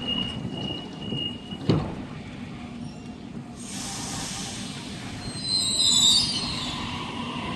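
Train on the line through the station: a hiss starts about halfway through, followed by high wheel squeal from the rails near the end. Before that a steady high tone stops with a sharp click.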